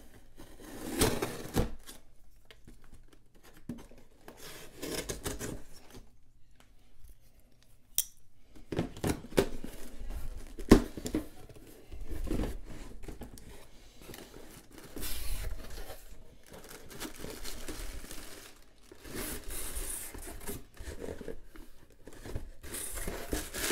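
Cardboard shipping box being opened: a folding knife slitting the packing tape, the tape tearing and the flaps scraping open, then plastic air-pillow packing crinkling as a small box is lifted out. Scattered knocks of handling, the loudest about halfway through.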